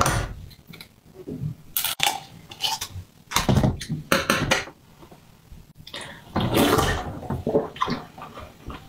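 Thin plastic bottle being peeled and cracked off a block of frozen red juice, crinkling and crackling against the ice in several bursts.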